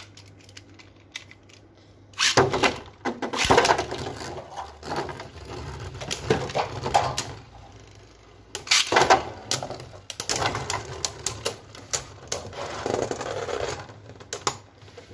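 Two Beyblade spinning tops launched into a plastic stadium about two seconds in, then whirring and rattling against each other with rapid sharp clicks of repeated collisions. The clatter dips briefly past the midpoint, then swells again.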